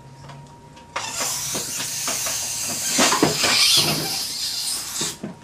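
Dental air syringe blowing a steady hiss of compressed air into the patient's mouth, starting suddenly about a second in and cutting off about four seconds later, used to break the seal and release an alginate impression tray.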